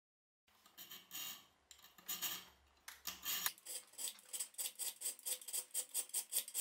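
Hand file rasping across the steel of a knife blank clamped in a vise: a few separate strokes at first, then quick, even back-and-forth strokes, about four a second.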